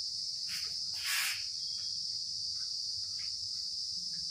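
Steady high-pitched insect drone, like crickets, with two short noisy rushes about half a second and a second in, the second the loudest.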